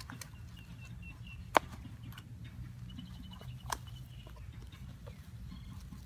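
Light wooden clicks and knocks as sticks and a bark slab are handled and fitted together into a deadfall trap, the sharpest about a second and a half in. A bird chirps faintly in the background in short quick runs of high notes.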